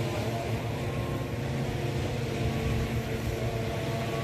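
Boat engine running with a steady drone, over a haze of wind and water noise.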